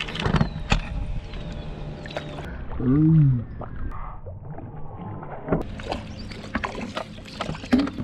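Water sloshing around a small boat as a large catfish is fought alongside and netted, with scattered knocks of tackle against the hull. About three seconds in, a person gives a short exclamation that rises and falls in pitch, the loudest sound here.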